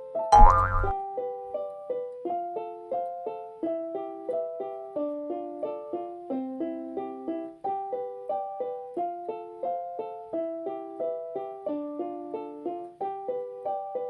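Background music: a light keyboard tune of short, evenly paced piano-like notes. About half a second in, a brief, loud sound effect rises in pitch over the music.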